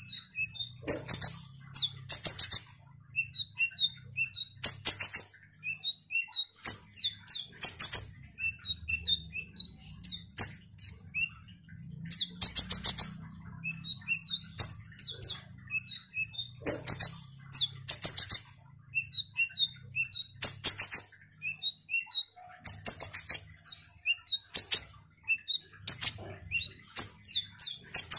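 A caged male kolibri ninja sunbird singing: loud bursts of rapid, high twittering notes come again and again, every second or two, with short sharp chips in between. A faint low hum sits under the song.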